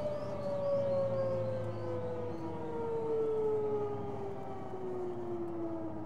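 Bell 505 JetRanger X's turbine engine spooling down after switch-off, heard from inside the cabin: a steady whine falling slowly and evenly in pitch.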